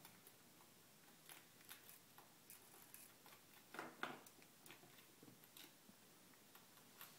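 Chinchilla nibbling, faint crisp clicks and ticks of its teeth, with one louder brief crackle about four seconds in.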